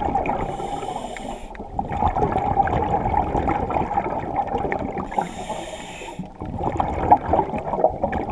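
A diver breathing through a regulator underwater: two hissing breaths about four and a half seconds apart, over a steady muffled bubbling and crackling wash.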